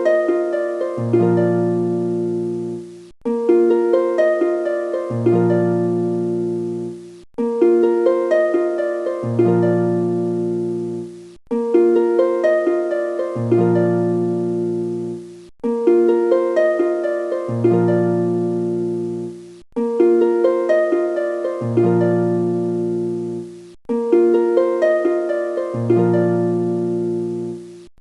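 Background music: a gentle plucked-string melody, the same short phrase looped about every four seconds with a brief break at each repeat.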